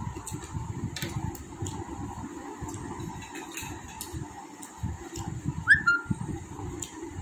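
Close-up eating sounds: chewing and handling noise with many small clicks over a faint steady hum. About six seconds in comes one short, high rising chirp.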